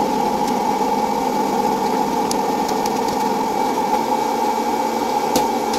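Electric hot-air popcorn popper running, its fan blowing with a steady hum. A few kernels pop in sharp clicks now and then as the corn begins to burst.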